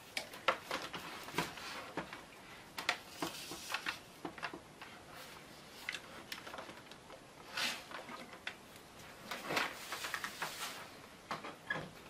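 A laptop and its power cord and power brick being handled while the cord is plugged in: scattered clicks, knocks and rustling of cable and plastic, with a few longer rustles in the second half.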